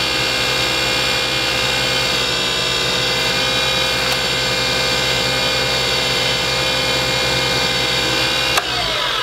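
Wood lathe's electric motor running steadily with a high, many-toned whine while the spinning stopper is wiped with a paper towel. Near the end it is switched off with a click, and the whine falls in pitch as the lathe spins down.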